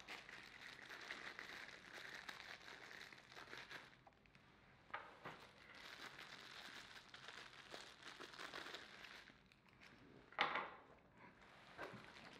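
Quiet crinkling of thin plastic packaging bags being opened and handled, in two stretches, with a few light knocks, the loudest about ten seconds in, as the plug adapters are set down.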